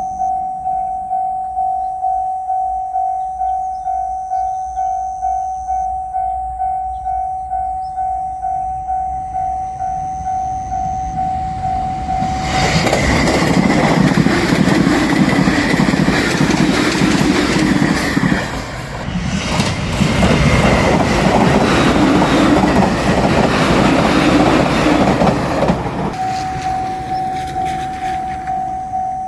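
Level-crossing bell ringing in steady repeated dings. About 13 seconds in, a JR Shikoku 8000 series electric limited express rushes through the crossing for around 13 seconds, with a brief lull partway. The bell then carries on alone.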